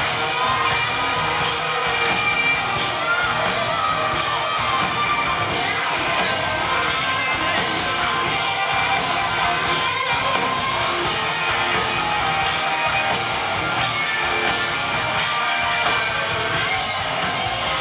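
Live rock band playing: electric guitar over drums with a steady beat.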